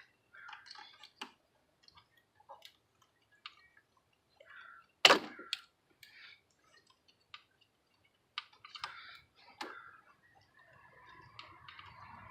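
Scattered light clicks and taps of pliers working against the engine parts while trying to grip a stuck ignition coil boot in a spark plug well, with one sharper knock about five seconds in.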